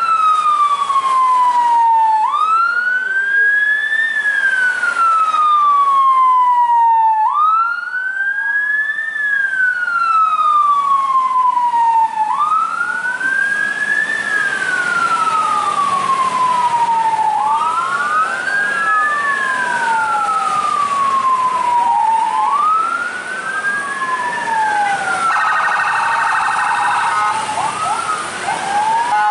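A siren wailing in slow repeated cycles, each rising quickly in pitch and then falling more slowly, about once every five seconds. Near the end a second, rapidly pulsing multi-note tone joins it.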